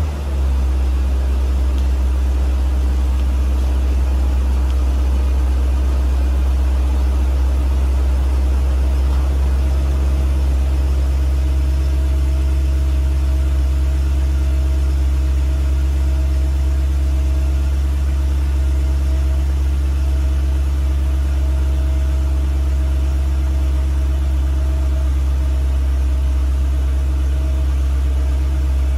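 BMW E38 740i's V8 idling steadily just after a cold start: an even, low exhaust hum with no misses or changes in speed.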